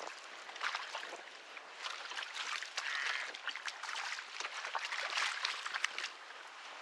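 Choppy, wind-driven water lapping and splashing against a Hobie Pro Angler kayak's hull, many short irregular splashes over a steady wash of water noise.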